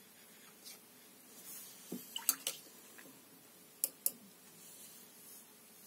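Watercolour brush being rinsed in water: light splashes with a few sharp clicks, a cluster about two seconds in and another pair near four seconds.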